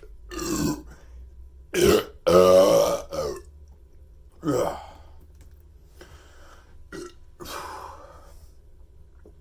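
A person burping repeatedly. There are several loud belches in the first five seconds, the longest about two and a half seconds in, followed by a few fainter ones.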